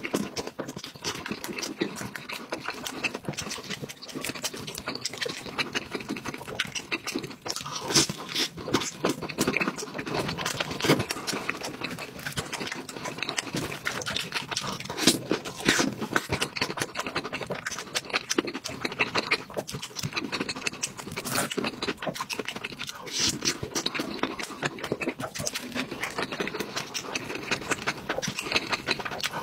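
Close-miked eating sounds: wet chewing and lip-smacking of a cheese-filled corndog and molten cheese, with many quick irregular clicks and smacks.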